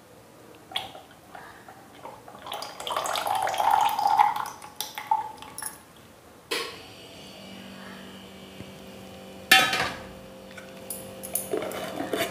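Homemade herbal hair oil pouring from a steel bowl into a glass jar, the stream running for about three seconds among light clinks of metal on glass. A loud clatter comes as the steel bowl is set down on the counter about nine and a half seconds in, followed by small clicks as the lid is screwed onto the jar.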